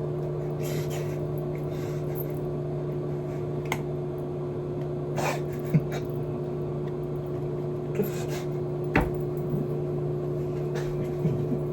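Microwave oven running, a steady hum, heating a container of clam chowder. A few short knocks or clicks sound over it, the sharpest about six and nine seconds in.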